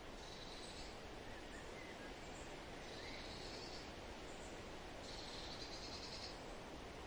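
Faint outdoor ambience: a steady hiss with a high, buzzing trill from a small animal, heard three times at intervals of two to three seconds, and a few faint chirps.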